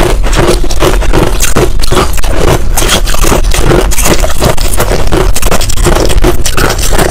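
Finely crushed ice being chewed close to a clip-on microphone: a dense, unbroken run of loud crunches, several a second.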